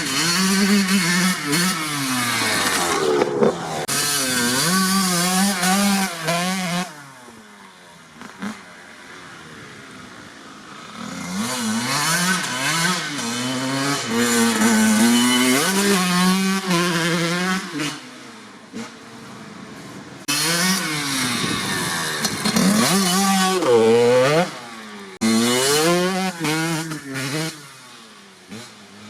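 1997 Kawasaki KX80's single-cylinder two-stroke engine with a DEP silencer, revving hard in repeated rising and falling climbs, dropping back to a quieter low running three times in between.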